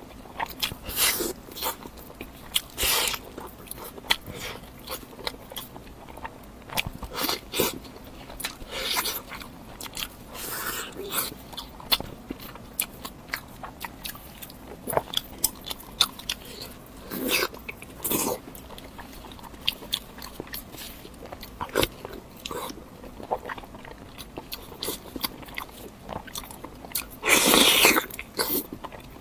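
Mouth sounds of a person eating close to the microphone: repeated bites and chewing in short sharp clicks, with a longer, louder stretch of noise near the end.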